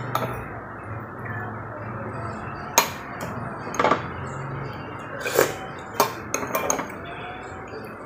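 Metal spoon and fork clinking against a ceramic soup bowl and plate: a few scattered sharp clinks, then a quick cluster of them between five and seven seconds in, over a steady low background noise.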